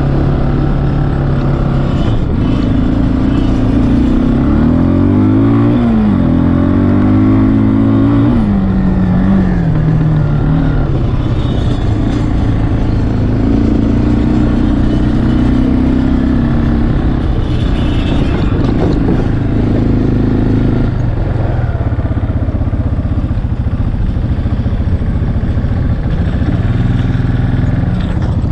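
ATV engine heard from the rider's seat, running under throttle. A few seconds in its pitch rises quickly, then falls away over several seconds as the rider backs off, and after that it runs at a steadier speed.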